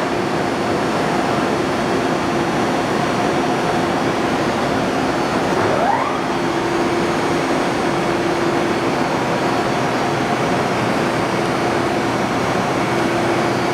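Lagun FU3-LA horizontal milling machine running under power: a steady mechanical noise with a steady hum, and a brief rising whine about six seconds in.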